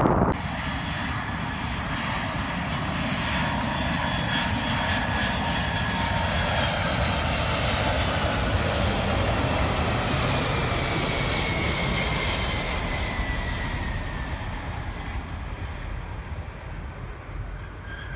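Boeing 747 Dreamlifter's four turbofan engines on landing approach, flying past low with landing gear down: steady jet engine noise with whining tones that grows to a peak about halfway through. As it passes, a whine drops in pitch and the sound slowly fades.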